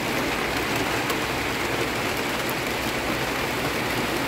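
Heavy rain falling steadily: an even, unbroken hiss with faint scattered drop ticks.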